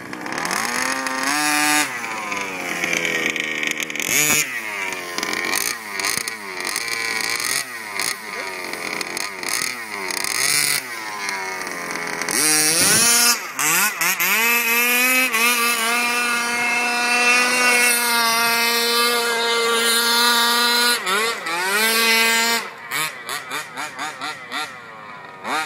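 HPI Baja 5T's 26cc two-stroke engine with a DDM v2 exhaust, revved up and down again and again. It is then held at high revs for several seconds, and near the end it is blipped in a quick series of short bursts.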